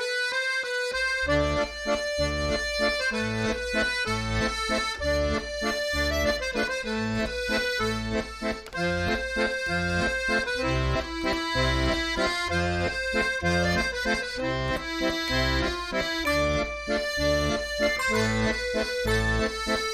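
Background music with a steady, repeating bass beat under a sustained melody.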